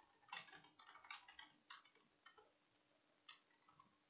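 Faint computer keyboard typing: a quick run of about eight keystrokes in the first second and a half, then a few scattered single clicks.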